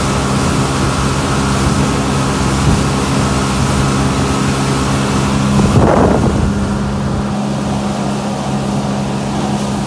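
Boat outboard motor running steadily at speed, with heavy wind buffeting on the microphone. A brief louder rush of water or wind about six seconds in.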